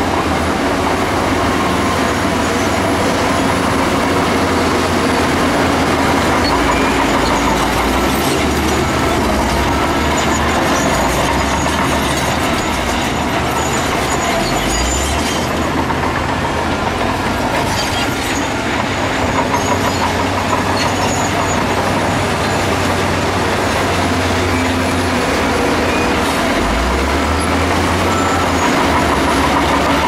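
Diesel engines of heavy earthmoving machines running under load, with the low engine note shifting a few times.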